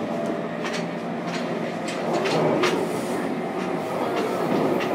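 Running sound heard inside a motor car of a JR Kyushu 303 series electric train under way: a steady rumble of wheels on rail with a faint whine. Sharp clicks from the track come every second or so.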